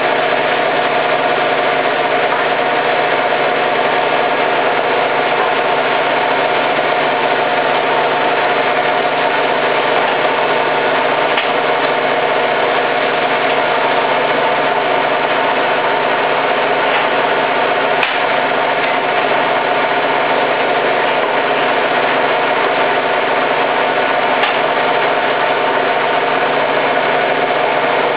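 Hoover Time Manager H130E washing machine spinning at a steady speed: a constant motor whine with a rumble underneath and no change in pitch.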